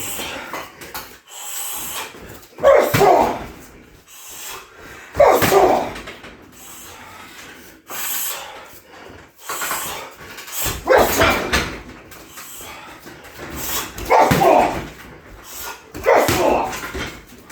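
Shin roundhouse kicks landing on a 60 kg heavy bag, each a heavy thud, six or seven of them about every two to three seconds.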